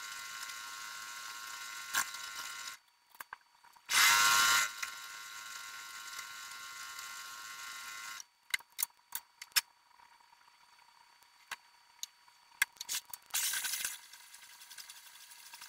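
Electric sewing machine, sped up so its whir sounds high-pitched: it runs steadily, stops about three seconds in, gives a loud short burst around four seconds, runs again until about eight seconds, then a stretch of scattered sharp clicks and taps before another brief loud burst near the end.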